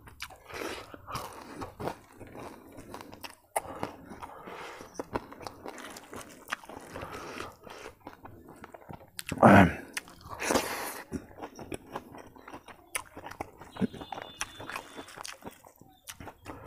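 Close-up chewing and biting of a handful of rice, omelet curry and lettuce, with wet smacking and crisp crunchy bites. A short hum of the eater's voice comes about halfway through.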